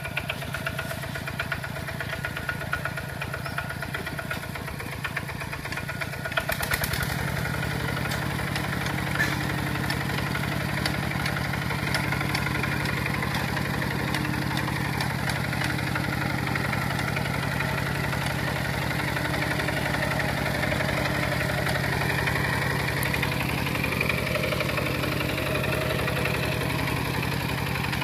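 Single-cylinder diesel engine of a Kubota walk-behind two-wheel tractor running steadily. It gets louder and fuller about six and a half seconds in and stays so while the tractor pulls a disc plough through the soil.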